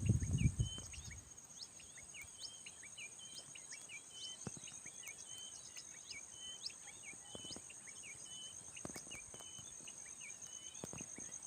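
Many small birds chirping in short, repeated notes over a steady high insect drone. A low rumble fades out in the first second or so, and a few faint clicks follow.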